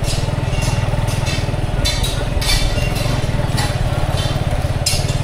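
Motorcycle engine running steadily at low road speed, heard from the rider's seat, with short bursts of hiss from the street above it.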